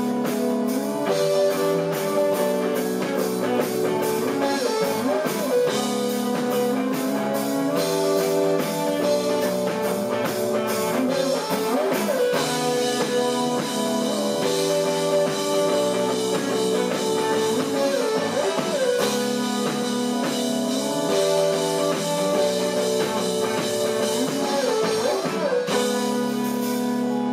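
Live rock band playing with electric guitars, bass and drum kit, steady and loud. Near the end the drums stop and a held guitar chord rings on.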